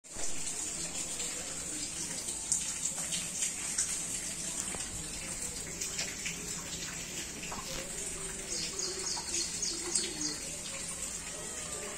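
A steady high hiss with scattered bird chirps, including a quick run of about half a dozen short chirps around nine seconds in.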